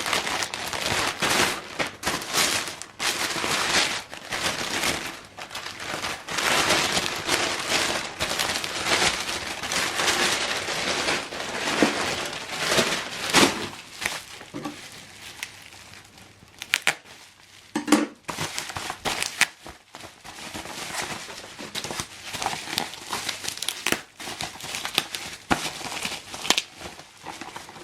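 Ink-cartridge packaging being opened by hand: plastic and paper crinkling and crackling, with sharp clicks and tearing. The crinkling is densest in the first half and becomes sparser and more broken later.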